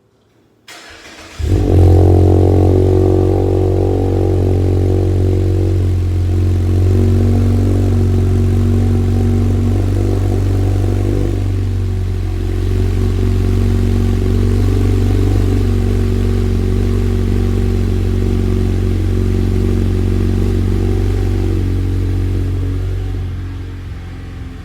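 Mazda 6's four-cylinder engine, breathing through a Corksport cat-back exhaust and K&N cold air intake, being cold-started. There is a brief crank, then it catches about a second and a half in with a flare of revs. It settles into a steady, fast cold idle, which drops lower near the end.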